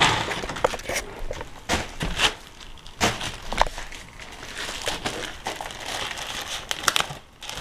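Plastic packaging crinkling and rustling as it is handled, broken by irregular sharp taps and clicks.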